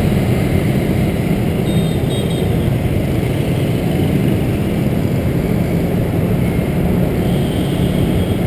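Steady low rumble of a scooter riding through dense motorbike traffic, its engine and road noise running on without a break. A short high tone sounds about two seconds in.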